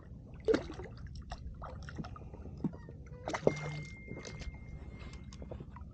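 Short bursts of water splashing and sloshing beside an inflatable boat. The loudest comes about half a second in, another cluster comes around three and a half seconds in, and a steady low rumble runs underneath.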